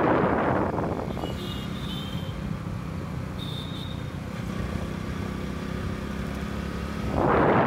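A vehicle travelling along a city street, its engine and road noise running steadily. Gusts of wind hit the microphone at the start and again near the end, and two short high tones sound in between.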